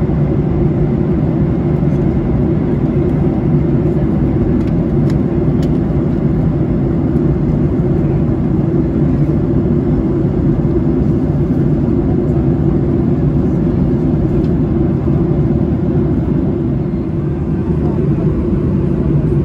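Steady, loud cabin noise inside a Boeing 737 airliner in cruise: an even, low rush of engine and airflow noise that does not change.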